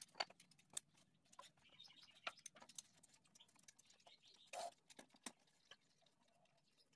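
Mostly quiet, with faint scattered metallic clicks and taps of a wrench working on bolts of a motorcycle engine's crankcase.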